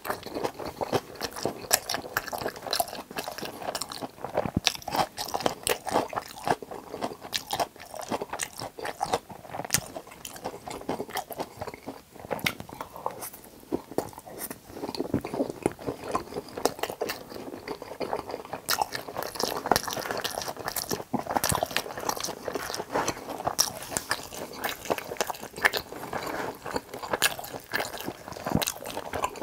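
Close-miked eating sounds: a person biting and chewing crispy battered fried pork (tangsuyuk) topped with melted cheese, with a continuous run of crunches.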